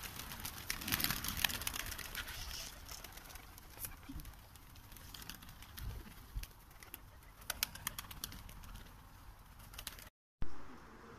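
A flock of Uzbek tumbler pigeons taking off, a run of sharp wing claps and flapping.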